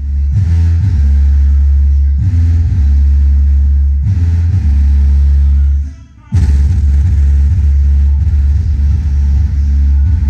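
Bass-heavy music played loud through a car sound system's trunk-mounted trio box, the subwoofer bass overwhelming everything else as long, deep held notes that shift in pitch. The bass drops out for a moment about six seconds in.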